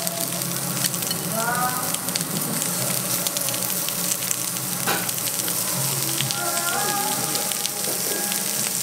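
Sliced lamb sizzling and crackling on a hot domed jingisukan grill as fresh raw slices are laid on; a steady dense sizzle full of small pops of spitting fat.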